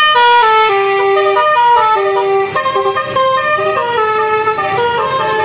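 Telolet Basuri musical horn on a vehicle playing a quick melody, its horn-like notes stepping up and down in pitch, sometimes two notes sounding together.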